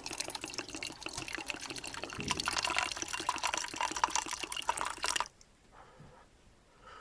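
Tea being poured into a camping mug, a steady splashing pour that stops abruptly about five seconds in.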